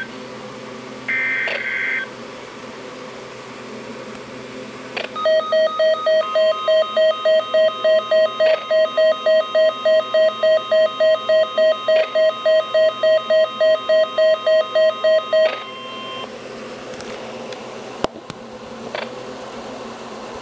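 Emergency Alert System flash flood warning tones: a brief screech of header data tones about a second in, then about ten seconds of a pulsing alert tone, roughly three beeps a second, over a steady higher tone, which cuts off about fifteen seconds in.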